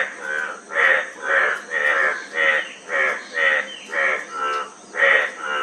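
Frog calling: a raspy croak repeated about twice a second, with a short pause near the end.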